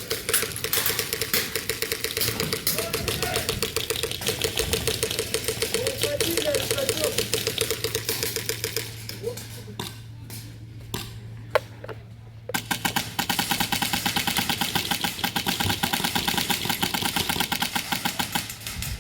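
Airsoft guns firing long full-auto bursts, a fast even clatter of shots. It thins to a few single shots about nine seconds in, then resumes about three seconds later.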